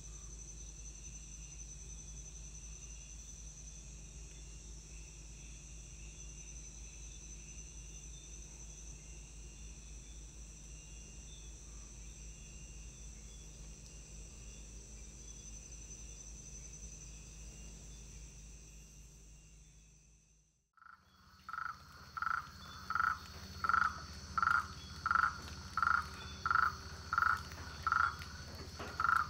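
Rainforest insects droning steadily at a high pitch over a low hum; after a brief dropout about two-thirds of the way through, a frog starts calling, a run of loud, evenly spaced notes about one and a half a second over a steady insect tone.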